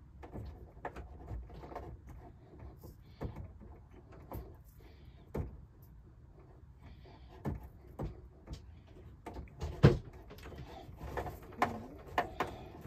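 Scattered light clicks and knocks as a brass compression fitting is threaded by hand onto a faucet supply hose, with the hose and fitting bumping against the cabinet. One sharper knock comes just before ten seconds in.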